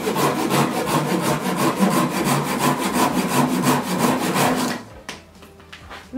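Large-tooth Silky Gomtaro Japanese pull saw cutting through a thick log in rapid, even strokes, several a second. The sawing stops about five seconds in as the cut goes through.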